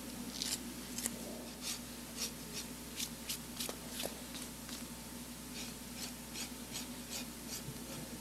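Masking tape being peeled off a horse's hoof wall in short tugs: a quick run of short, dry rips over the first few seconds, followed by fainter rubbing scuffs.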